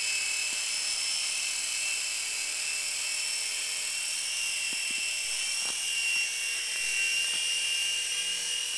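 Small Gen-X RC toy helicopter in flight: its electric motors and spinning rotor blades give a steady high-pitched whine, drifting slightly in pitch as the throttle changes.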